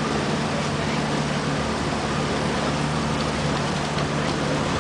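Steady drone of a river boat's motor under way, with an even rush of water and wind around the hull.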